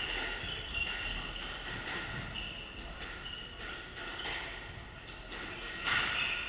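Squash ball struck by a racket and knocking off the court walls and floor, with squeaks from players' shoes on the wooden court floor. A louder knock comes just before the end.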